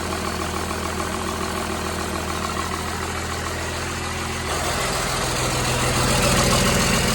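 Cummins diesel engine running with no exhaust fitted, idling steadily, then brought up to a higher, steady speed about four and a half seconds in and getting louder.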